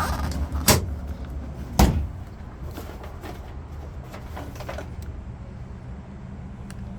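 Two sharp knocks about a second apart, followed by a few lighter clicks, as parts of a 1976 Jeep CJ7's body or interior are handled.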